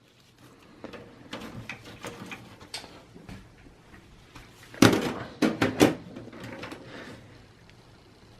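Sheet-metal side panel of a desktop tower case being fitted back on: light clicks and knocks, then a louder run of sharp clatters about five seconds in.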